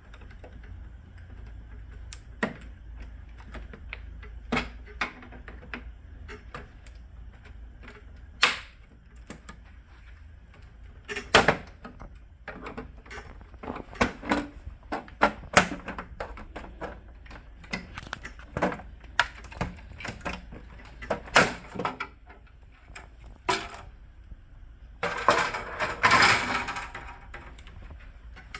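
Irregular sharp plastic clicks and knocks from a laser printer's plastic covers being pried and handled during disassembly, coming more often in the second half. About 25 s in there is a longer stretch of scraping and rattling.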